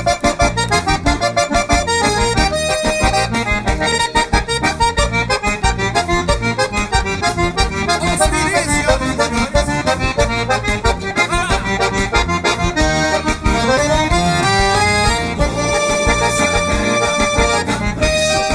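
Two layered piano accordion parts playing a fast vaneira, quick rhythmic melody notes over a pulsing bass. Near the end a rising run leads into long held chords.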